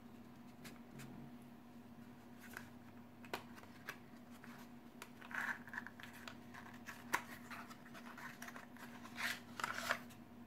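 Faint handling of small cardboard packaging: scattered clicks and taps, with short scraping rustles about five and a half seconds in and again near the end, over a faint steady hum.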